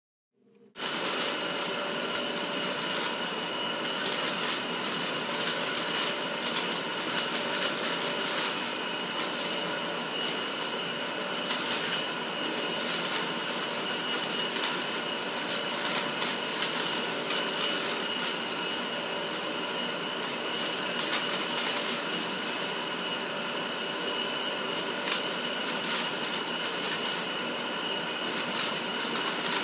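Electric fan running at a steady speed: a loud rush of air over a steady whine, with fast crackling flutter from plastic flapping in the airflow. It starts suddenly about a second in.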